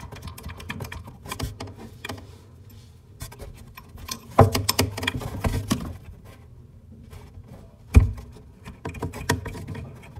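Light clicks, scrapes and rattles of a single-lever faucet's metal mounting nut being turned off its threaded stud by hand, with the braided steel supply hoses knocking against it; two louder knocks, about four and a half and eight seconds in.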